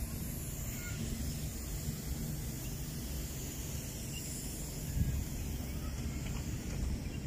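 Open-air park ambience: a steady low background noise with faint bird chirps now and then, and a soft bump about five seconds in.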